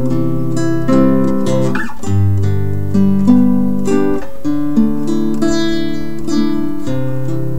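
Background music: acoustic guitar playing a steady run of plucked notes and chords.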